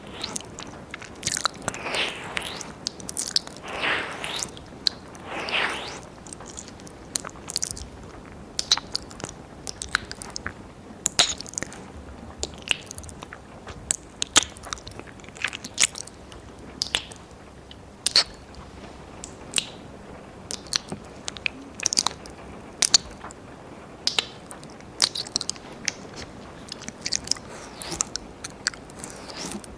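Wet mouth sounds right at a 3Dio binaural microphone's ears: tongue and lip clicks and licking, irregular and close, with a few longer wet sounds in the first six seconds.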